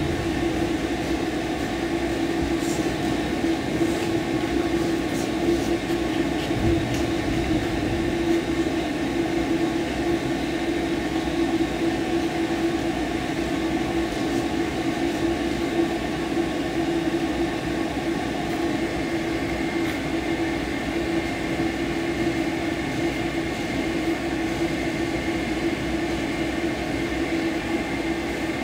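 Pet grooming blow dryer running steadily, blowing air through the dog's coat as it is brushed out, with an even rushing hum.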